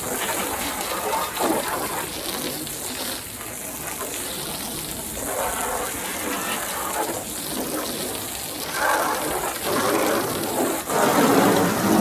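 Water spray hitting the body of a truck during a wash: a continuous hiss that swells and fades as the spray moves over the panels.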